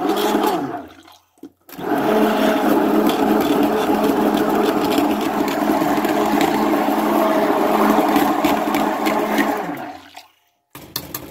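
Handheld stick blender running submerged in thick soap batter in a glass bowl, churning the mix. It runs for about a second, pauses briefly, then runs steadily for about eight more seconds and stops near the end.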